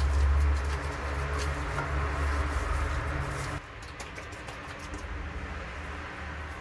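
Hand scraper scratching old paint and filler off a wall panel in short, irregular strokes. A loud low hum runs underneath and stops about three and a half seconds in.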